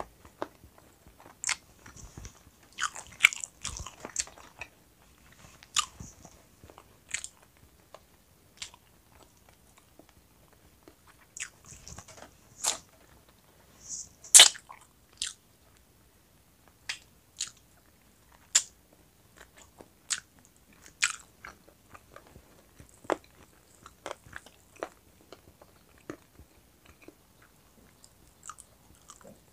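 Close-miked chewing, biting and lip-smacking of a person eating roast chicken wings, with irregular sharp wet smacks and clicks. The loudest smack comes about halfway through.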